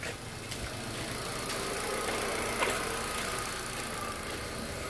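Hyundai Accent engine idling steadily, with a few faint knocks over it.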